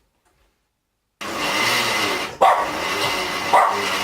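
Blender switched on about a second in and running steadily on a thick, sticky date and oat mix. A dog barks twice over the motor.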